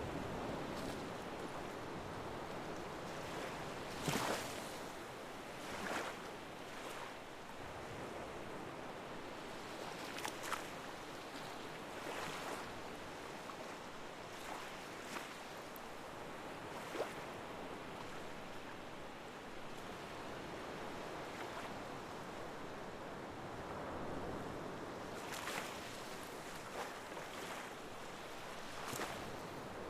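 Waves washing in: a steady rush of water with a few louder swells or splashes scattered through it.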